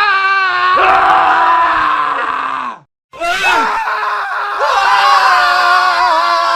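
Men screaming: two long, wavering screams spliced one after the other, with a short cut to silence about three seconds in.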